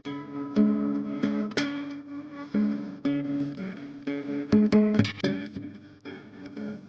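Guitar music with plucked notes and held chords.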